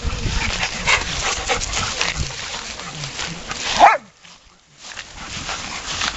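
Dogs romping through dry grass with a lot of rustling and scuffling, and one loud dog bark a little under four seconds in. The bark is followed by a brief hush.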